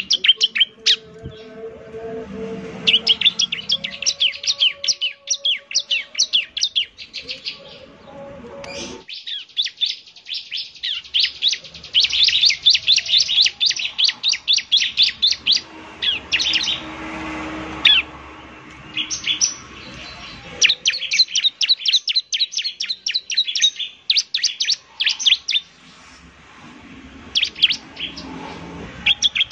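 Bar-winged prinia (ciblek) singing: bouts of fast, high, rapidly repeated chirping notes lasting a few seconds each, broken by short pauses.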